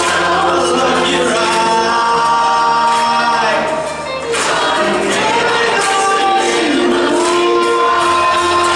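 Large community choir singing a gospel-style song in full voice, holding long chords, with hand claps keeping time. The singing eases briefly about four seconds in.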